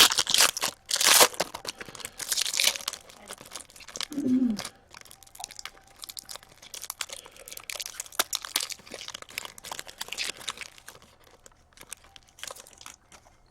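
A trading card pack wrapper crinkling and tearing as the pack is opened and the cards are handled, dense crackling for the first few seconds, then lighter, sparser rustling.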